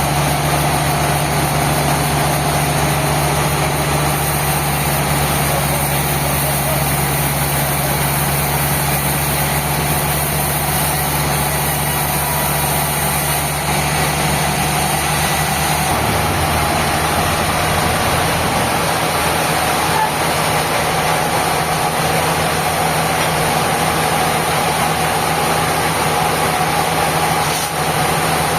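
Sawmill machinery running with a steady engine drone; its low hum shifts in pitch about halfway through.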